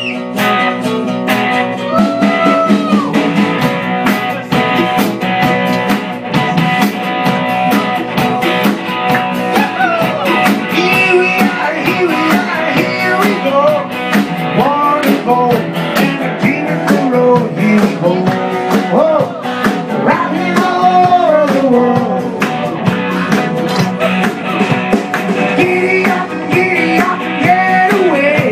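Live blues-rock band playing: acoustic, electric and bass guitars over a steady beat, with bending guitar notes and a singing voice.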